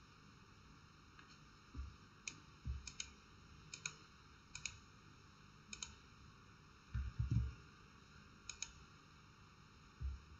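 Computer mouse clicking about half a dozen times, mostly in quick pairs, with a few dull low thumps in between, the loudest a cluster about seven seconds in.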